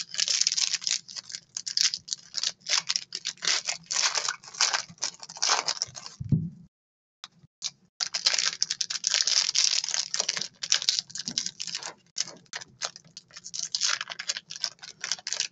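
Shiny foil trading-card packs crinkling and crackling as they are handled and opened by hand, a dense run of small crackles. The sound cuts out for about a second just past the middle, then resumes.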